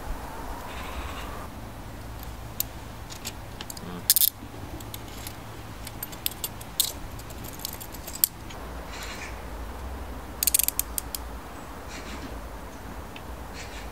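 Metal handcuffs clinking and clicking as they are fastened around a railway rail: scattered sharp metallic clicks, with a louder cluster about four seconds in and a quick run of clicks about ten and a half seconds in, over a low steady background hum.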